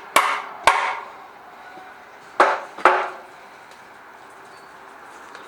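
Sharp metallic clacks from the electric starter of a Chinese clone of the Honda Rebel 250 engine, which is not engaging: a pair near the start and another pair about two and a half seconds in, each ringing briefly.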